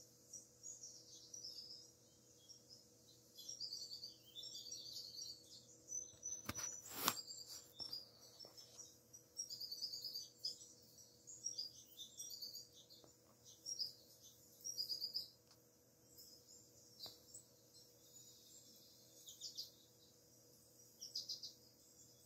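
Quiet songbird chirping and twittering from a Cat TV bird video on the television, in quick high runs of notes that come and go. A sharp click about seven seconds in is the loudest sound.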